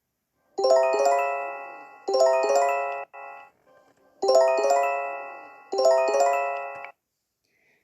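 Japanese emergency alert chime: a bright phrase of several overlapping bell-like notes, struck and then fading, played four times in two pairs.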